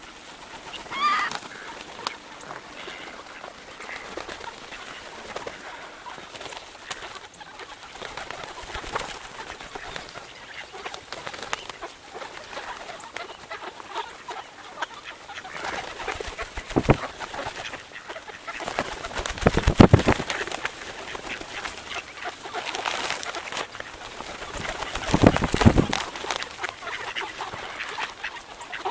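A large flock of birds calling and chattering over and over, with a gliding call about a second in. Two louder rushing surges come about two-thirds of the way through and again near the end.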